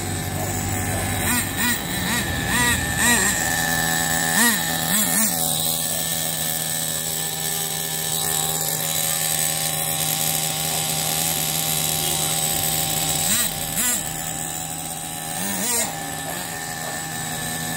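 Nitro two-stroke glow engine of a 1/10-scale RC monster truck idling steadily, with quick throttle blips that rise and fall in pitch: several in the first five seconds and a few more near the end, as the engine is warmed up.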